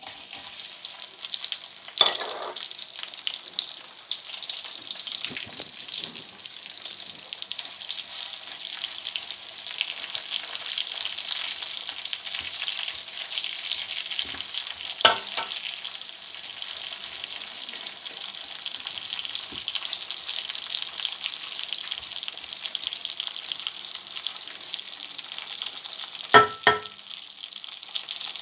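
Sliced onions sizzling steadily in hot oil with cumin seeds in a metal pan, being stirred. A few sharp knocks come through: about two seconds in, about halfway, and a louder double knock near the end.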